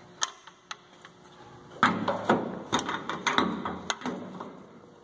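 An irregular series of sharp knocks and taps, light ones in the first second and a heavier cluster from about two seconds in.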